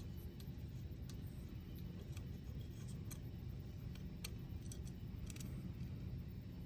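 Faint, irregular small clicks and ticks of a hex driver, screws and spacers being handled, over a low steady hum.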